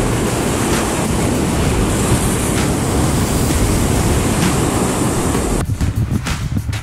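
Rough sea surf breaking and washing over coastal rocks, a loud steady rush mixed with wind on the microphone. Near the end it changes to a lower, gustier wind rumble.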